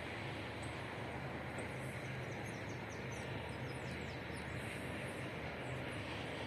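Steady outdoor background rumble with a low hum, like distant traffic, with faint, quick, high chirps of small birds scattered through it.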